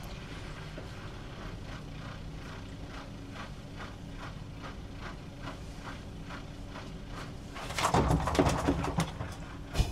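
External aquarium canister filter pump humming steadily as it starts up weakly, barely drawing water, with a faint ticking about twice a second. About eight seconds in comes a burst of rattling and knocking as hands work at the filter in the cabinet, and there is a sharp knock near the end.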